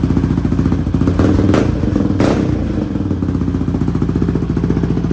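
Yamaha Raptor 700R quad's single-cylinder engine, fitted with an Empire Industries single aftermarket exhaust, idling with a steady, even pulse. It is briefly revved twice in quick succession, about a second and a half and just over two seconds in, before dropping back to idle.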